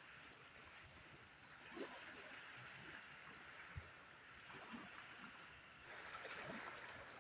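Crickets and other night insects chirring faintly in a steady high-pitched drone, with a few soft knocks from handling, one of them about four seconds in.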